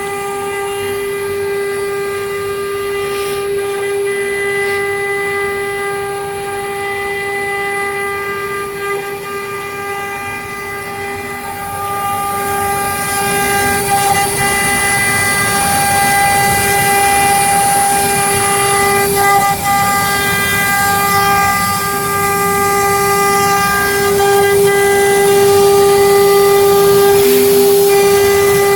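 Air-cooled spindle of a double-head wood CNC router running at speed: a steady high-pitched whine with overtones. About twelve seconds in, a high hiss joins it and the whole sound grows louder toward the end.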